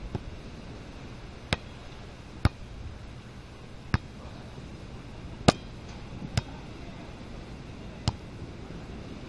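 Volleyball struck by players' hands and forearms during a beach volleyball rally: about seven sharp slaps at uneven intervals, the loudest about five and a half seconds in, over a steady low background hiss.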